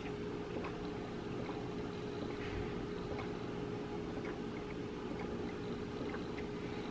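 A glass of juice being drunk down in gulps, the swallows faint and scattered over a steady low hum.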